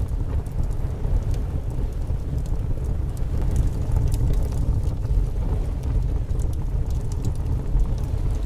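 Wind buffeting the microphone with a steady low rumble, over scattered sharp crackles from the burning cardboard model ship.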